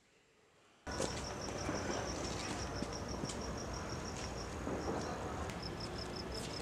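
A cricket chirping in a fast, even pulse of about six or seven chirps a second over steady outdoor night hiss. The chirping starts suddenly about a second in and breaks off briefly near five seconds before resuming.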